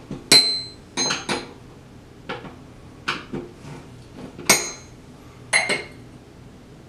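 Hand tools clinking and tapping against a chrome paper towel holder's metal mount and rod: about eight sharp metallic clinks at uneven intervals, a few of them ringing briefly.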